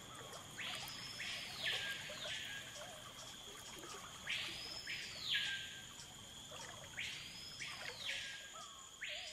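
Faint forest wildlife ambience: a buzzy animal call that sweeps up and falls back, heard four times about every two to three seconds, over a faint steady high hum.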